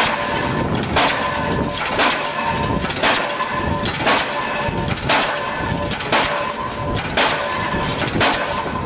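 Link-Belt diesel pile hammer running, firing and striking the pile in an even rhythm of just under one blow a second, about nine blows, with a steady mechanical rumble between the blows.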